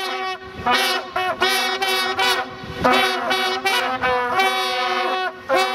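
A group of brass horns blown together in unison, sounding a string of held blasts broken by short gaps, some notes bending in pitch as they start.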